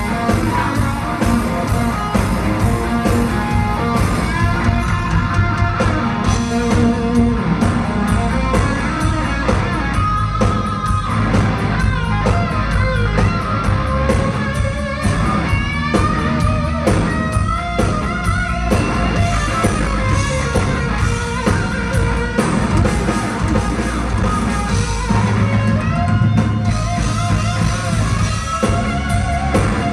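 Live rock band playing loud, with an electric guitar lead over drums and bass, its notes bending up and down.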